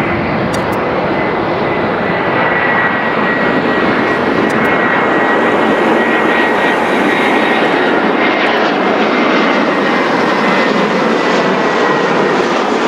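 Boeing 787-8 Dreamliner's jet engines at taxi power as the airliner rolls past: a steady loud rushing hiss with a thin high whine that drifts slightly lower in pitch.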